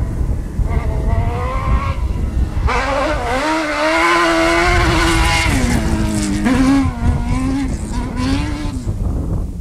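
Off-road rally buggy's engine revving hard as it races across a grass field, growing loud about three seconds in. Its pitch dips at a gear change a little past the middle and climbs again before it fades as the car drives away.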